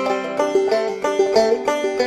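Background instrumental music: a plucked string instrument picking a quick run of notes, about four or five a second, each note fading fast.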